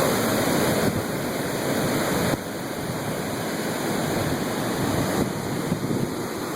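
Heavy storm surf from Hurricane Sandy breaking and washing up a beach in a steady rush, the waves cutting away the sand.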